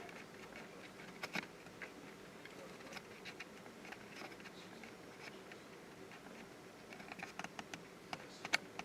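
Faint, scattered small clicks and taps of hands handling tools and parts on a workbench, more of them near the end.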